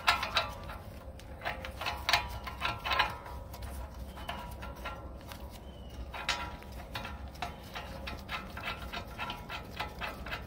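Steel bolt and washer being threaded in by hand into a steering knuckle, giving irregular small metallic clicks and ticks over a steady low hum.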